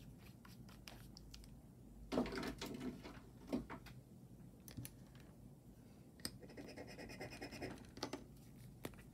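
A metal ring being scratched against a gold-testing touchstone in two bouts, one about two seconds in and a quicker, finer one around six and a half seconds in, with a few small clicks between.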